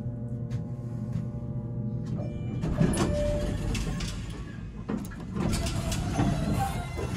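Inside a Schindler traction elevator car: a ringing chime tone dies away, then clicks and a short beep as a floor button is pressed, with the car doors sliding and knocking shut.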